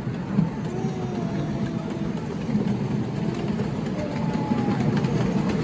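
Miniature railway passenger train running along the track, heard from on board as a steady low rumble of wheels and coaches.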